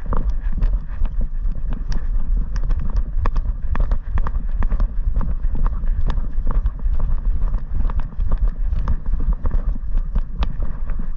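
Weimaraner running flat out across grass, heard from a camera strapped to its back: its footfalls and many irregular clicks and knocks from the harness-mounted camera over a steady low rumble of wind buffeting the microphone.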